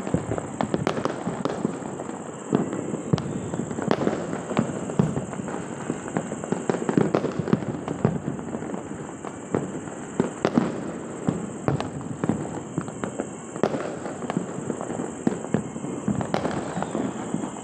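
Many fireworks and firecrackers going off all around at once: a continuous dense crackle with frequent overlapping sharp bangs and pops, some near and loud, most farther off.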